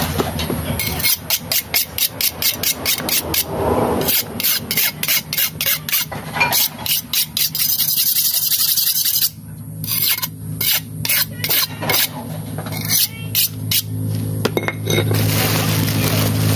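A knife blade being sharpened against a cleaver: quick, evenly repeated strokes of steel scraping on steel, about three a second, with a short pause about nine seconds in.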